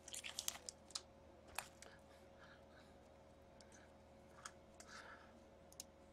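Near silence, with a few faint clicks and soft rustles of trading cards being slid out of a foil pack and shuffled by hand.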